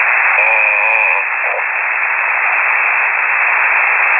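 Single-sideband shortwave receiver audio between transmissions: a steady, loud band-limited hiss of static. A short wavering pitched sound breaks through from about half a second to a second in.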